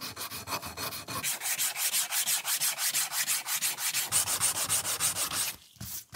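Hand-held abrasive block scrubbed back and forth over rusty thin sheet steel, a quick run of rasping strokes at about five a second, taking the rust off. The scrubbing stops about five and a half seconds in, followed by a couple of single strokes.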